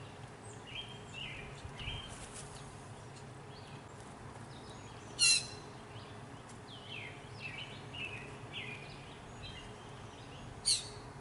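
Small birds chirping and calling over a steady low hum of outdoor background noise. Two short, sharper sounds stand out, one about halfway through and one near the end.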